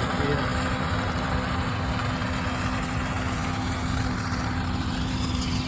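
Combine harvester running steadily in the field, a constant engine drone with a steady hum and the rushing noise of the machine threshing.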